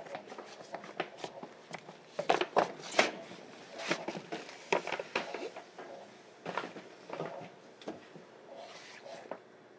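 Scattered knocks, clicks and footsteps inside a train carriage, with no steady running noise beneath them. The loudest knocks come a little after two and three seconds in.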